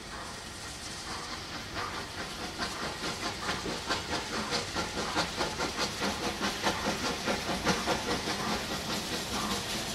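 Bulleid Battle of Britain class three-cylinder steam locomotive 34067 Tangmere working hard with a loaded train, its exhaust beats at about three a second growing louder as it approaches, over a steady hiss of steam.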